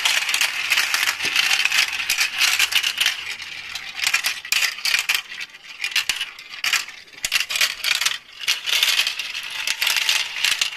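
Glass marbles rolling and clattering down a plastic marble run's tracks and tubes: a dense stream of clicks and rattling that thins out about two thirds of the way through and picks up again near the end.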